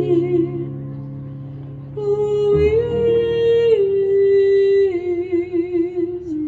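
Live performance of a slow hymn on flute, female voice and keyboard: long held melody notes with small ornamental turns over sustained chords. The first phrase fades and a new one enters about two seconds in.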